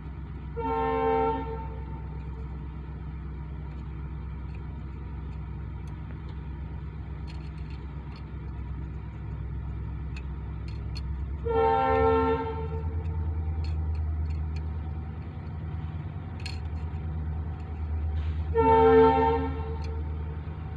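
A vehicle horn sounds three times, one blast of about a second each: near the start, about halfway through, and near the end. A steady low hum and a few faint clicks run underneath.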